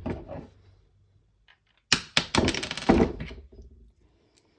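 Hard knocks and clatter of parts and tools being handled on a work surface, in a quick cluster of impacts about two seconds in.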